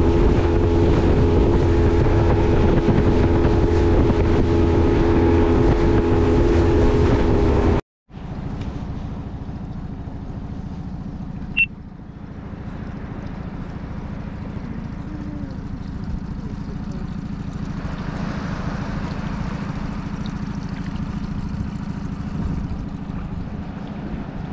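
Boat's 20 hp outboard motor running steadily under way, with a steady engine note over wind and water noise. After an abrupt cut about eight seconds in, a quieter steady low rumble continues, with one sharp click a few seconds later.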